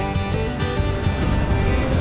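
Background music with strummed guitar, with the TYM 474 tractor's diesel engine running steadily underneath as it drives past.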